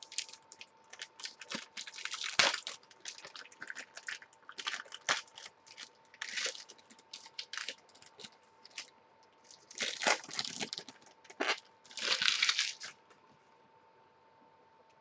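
Trading cards and their plastic packaging being handled, giving irregular rustling, crinkling and small clicks, with a few longer, louder rustles. It goes quiet near the end, leaving a faint steady hum.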